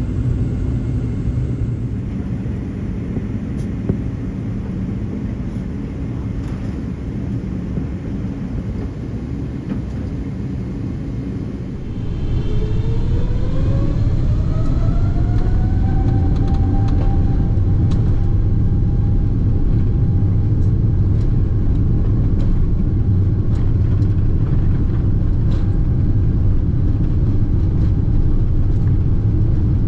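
Boeing 777-300ER's GE90 engines heard from inside the cabin: a steady low rumble, then about twelve seconds in the engines spool up to takeoff thrust. A whine rises and levels off into a steady high tone over a louder rumble.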